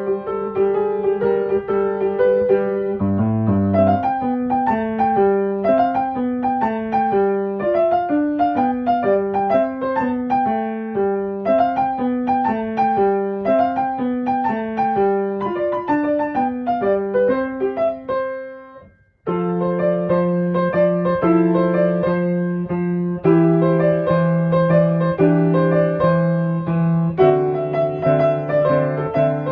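Background piano music: a running melody of quick notes that fades out briefly and starts again with held chords.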